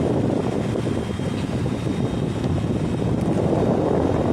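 Outdoor condenser unit of an Ecox 3-ton (36,000 BTU) split air conditioner running, its fan blowing hot discharge air across the microphone as a steady rushing noise.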